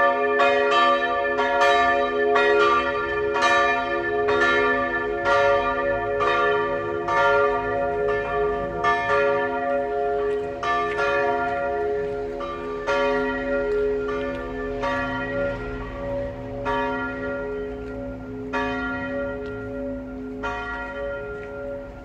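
The two church bells of a small tower, tuned b' and d'', swinging and ringing together. Their strikes come thick and fast at first, then grow further apart and fainter as the bells slow down at the end of the peal.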